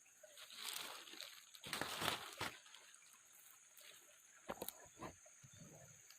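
Water sloshing and splashing in two short surges, followed by a few light knocks.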